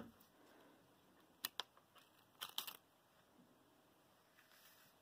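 Near silence with a few faint handling sounds: two short clicks about a second and a half in, then a brief patch of crinkling a moment later, as the peeled-off adhesive stencil vinyl and the foam-board sign are handled on paper.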